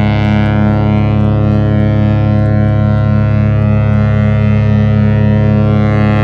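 The cruise ship Celebrity Reflection's horn sounding one long, loud, steady low-pitched blast, rich in overtones.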